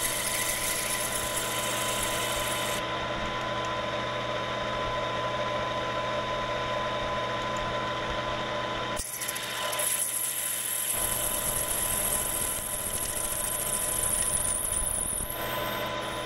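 Metal lathe running with a drill spinning in its chuck, boring a cross hole through a heat-treated Ford 8.8 differential cross pin. A steady motor hum sits under the cutting noise, which breaks off about nine seconds in, resumes a second later and eases off near the end.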